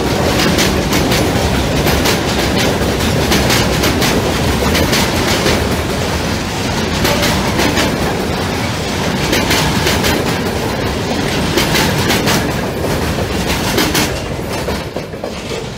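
Freight wagons rolling past, their wheels clattering over rail joints; the noise fades away near the end as the last wagon goes by.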